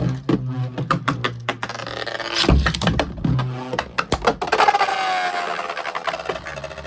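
Beyblade spinning tops whirring and clashing in a plastic stadium: a run of sharp clicking hits over a steady spinning whir, with a ringing whine that slowly falls in pitch in the second half.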